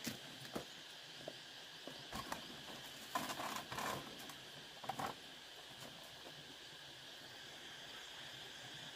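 Light knocks and rattles of a bamboo hut door being handled and pushed open, loudest in a short cluster about three seconds in, with a few scattered knocks around it. A steady insect chorus runs underneath.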